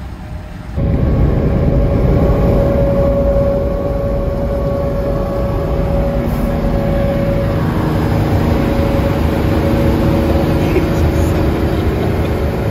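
Road and wind noise at highway speed with a Peterbilt semi truck's diesel engine and tyres running right alongside; the noise jumps up sharply about a second in, as if a car window came open, and stays steady and loud.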